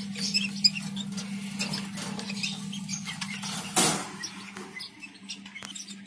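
Young Fischer's lovebird chicks giving many short, high, squeaky chirps as a hand reaches in among them, with one louder sound just before four seconds in, over a steady low hum.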